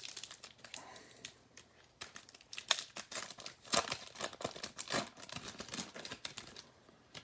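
Foil trading-card pack wrapper being torn open and crinkled by hand: irregular crackling, with a few louder crinkles around the middle.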